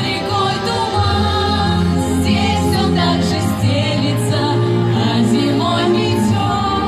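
Girls' voices singing a song in Russian over an instrumental backing track with sustained bass notes.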